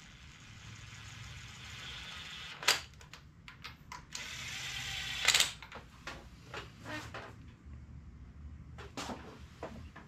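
Cordless drill spinning spark plugs into the engine with a socket extension, in two runs that grow louder and each end in a sharp click as the plug seats. Lighter clicks and taps follow from handling the tool.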